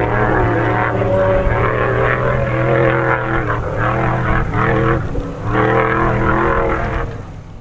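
Off-road race vehicle engine running hard with a steady drone, dipping briefly twice, then fading out near the end.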